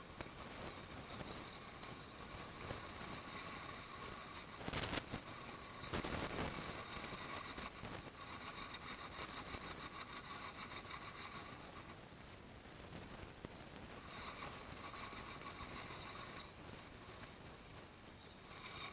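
Radio-controlled scale Land Rover Defender crawler working over loose stones and dirt: its small electric motor and gears whine faintly, rising and falling with the throttle, and its tyres crunch on gravel. There are a couple of sharp knocks about five and six seconds in.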